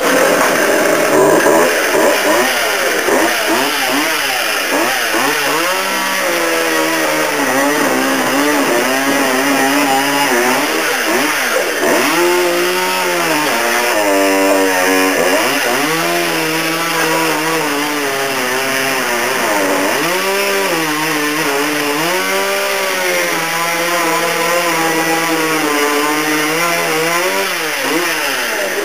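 Two-stroke chainsaw running hard through a couch. Its engine note rises and falls over and over as it revs and bogs down under the cut, with a couple of deep dips partway through.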